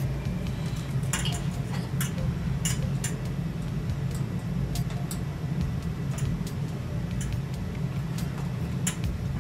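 Scattered light clicks and taps from LED backlight strips being handled and pressed onto a TV's metal backplate, over a steady low hum.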